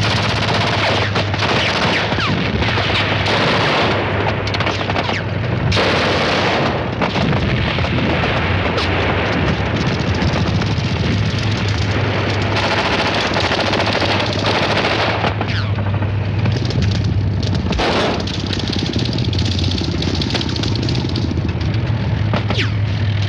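Battle gunfire: a belt-fed machine gun firing steadily with rifle shots mixed in, a few louder blasts, and a steady low rumble underneath.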